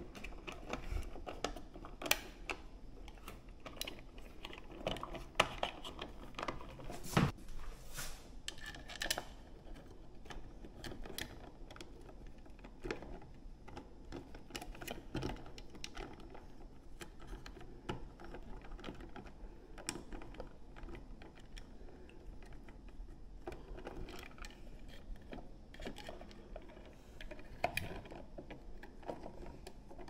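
Irregular small clicks, taps and scrapes of plastic and metal as a three-way wall switch is handled and pushed into its electrical box with the wires folded in behind it. A few sharper clicks stand out, about two, five and seven seconds in and again near the end.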